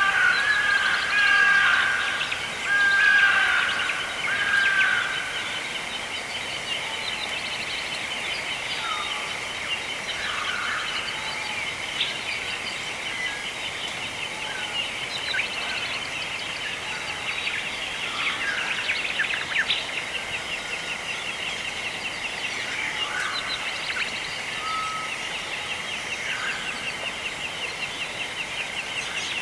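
Birds calling, loudest in the first few seconds and then as scattered short chirps, over a steady high-pitched chorus with a fast pulsing.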